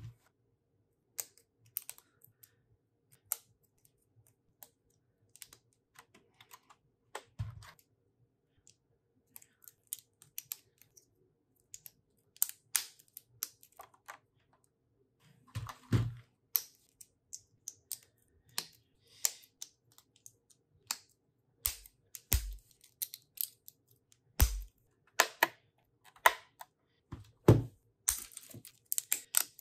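Plastic Lego bricks clicking and snapping together as pieces are pressed onto a model and picked from a loose pile, in scattered irregular clicks. A few louder, duller knocks come in among them.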